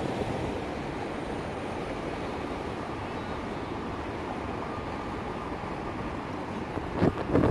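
Vienna E2 tram with its c5 trailer rolling past on street track, a steady even running noise of wheels on rail and traction motors. Near the end, a few louder bursts of wind hit the microphone.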